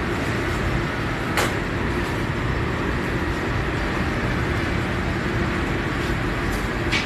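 Steady roar of a commercial kitchen's extractor hood fans and gas range burners running under the stockpots. A short sharp click or clink cuts through it about a second and a half in, and another near the end.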